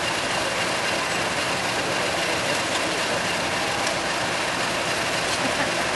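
Class 50 diesel locomotive's English Electric 16-cylinder engine idling steadily while the locomotive stands at the platform.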